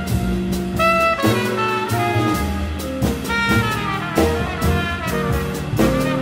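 Jazz big band playing: trumpets, trombones and saxophones hold chords that shift every second or so, over a drum kit with regular cymbal and drum strikes.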